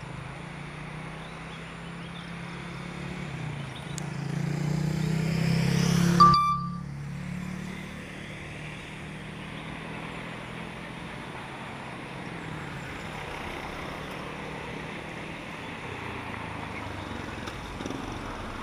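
Steady low motor-vehicle hum that swells for about three seconds, then cuts off sharply about six seconds in with a short beep, leaving a fainter steady hum of traffic.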